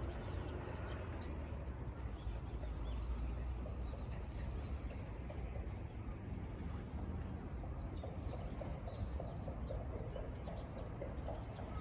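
Small birds chirping over a steady outdoor background rush with a low rumble.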